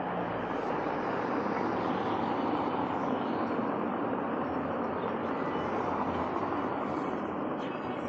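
Steady outdoor street noise: a car's tyres rolling over a cobbled street, an even hiss with no sudden events.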